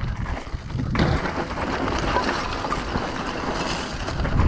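Mountain bike tyres rolling over loose gravel and rock on a steep descent, a rough hiss that starts sharply about a second in, with wind rumbling on the helmet camera's microphone.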